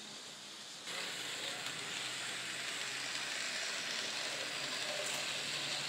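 N scale model trains running on the layout track: a steady hissing whir of small motors and wheels on rail, which gets louder about a second in and then holds steady.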